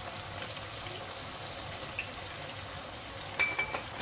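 Sliced onions and chillies frying in oil in a wok: a steady sizzle with small crackles, as oyster sauce is poured in from a bottle. A short clink near the end.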